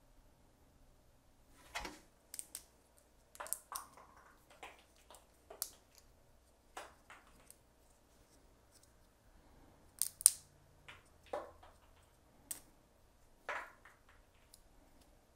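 3D-printed plastic tree supports being snapped and picked off a small printed figure by hand: irregular sharp cracks and clicks, the loudest a quick pair about ten seconds in.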